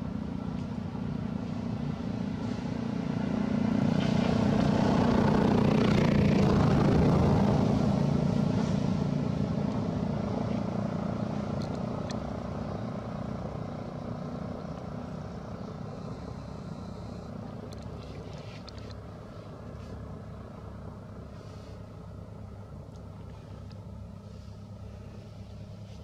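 A motor vehicle passing by: a low engine drone that swells to a peak a few seconds in, then slowly fades away, leaving a fainter steady rumble.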